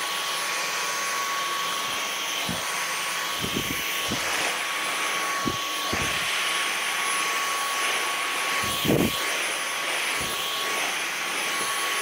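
Dyson V15 Detect cordless stick vacuum running on a hard floor: a steady rush of air with a constant high motor whine, and a few short, low knocks as the cleaner head is pushed about, the loudest about three-quarters of the way through.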